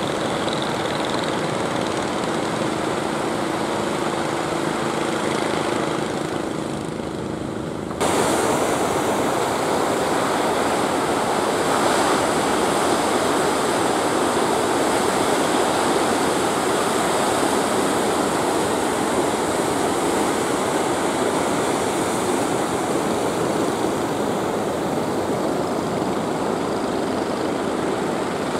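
Surf breaking on the shore mixed with the steady drone of fishing boat engines. About eight seconds in, the sound cuts abruptly to louder, hissing surf and engine noise.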